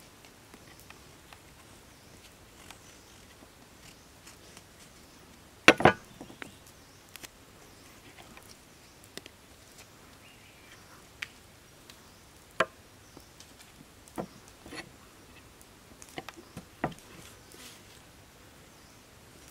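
A large knife chopping slices off an eggplant onto a wooden chopping board: sharp, irregular knocks of the blade hitting the board, the loudest a quick double knock about six seconds in, with smaller knocks every second or two after.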